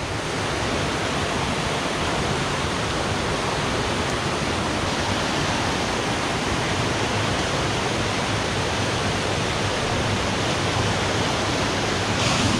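Steady rushing of a river and waterfall running high with hurricane rain: an even wash of water noise with no breaks.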